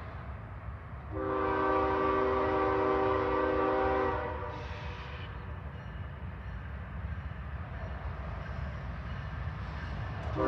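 Diesel freight locomotive's multi-chime air horn sounding one long chord blast of about three seconds, starting about a second in, over a low steady rumble. A second, louder blast begins right at the end.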